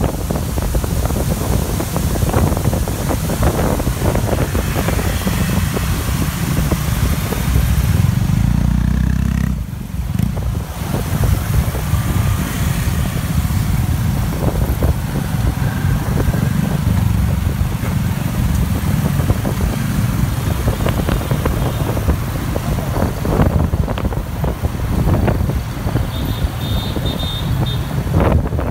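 Wind buffeting the microphone over the running engine of a moving motor scooter, with the surrounding scooter and car traffic heard from the pillion seat. The sound drops briefly about ten seconds in.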